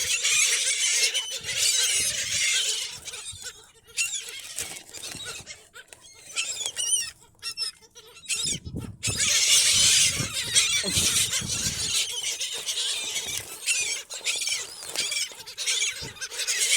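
A flock of gulls calling over one another, many high, wavering cries at once; the calling thins out for a few seconds in the middle, then comes back loud.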